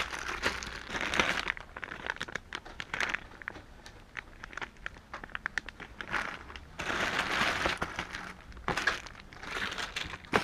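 Plastic zipper bags of loose action figures crinkling and rustling as a hand digs through a bin of them, in irregular bursts with many small clicks.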